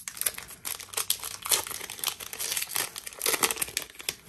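Plastic foil wrapper of a Donruss Optic football card pack crinkling as it is handled and opened, a dense, uneven crackling.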